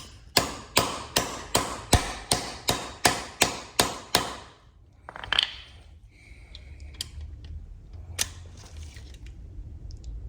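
About a dozen sharp metal blows, roughly three a second for about four seconds, then a few single clicks: tool strikes on a ratchet to break loose an over-tightened bolt on a Ducati S2R 1000's cam belt drive.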